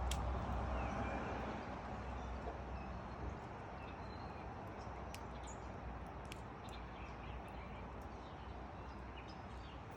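Small birds chirping in short, scattered high calls over a steady background hiss, with a low rumble that fades over the first couple of seconds.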